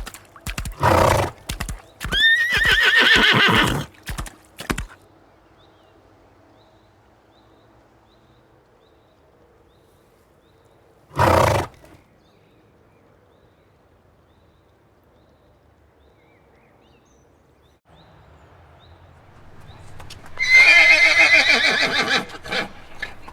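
Horse neighing twice, a wavering call about two seconds in and another near the end, with hooves clip-clopping at the start and a short snort around the middle.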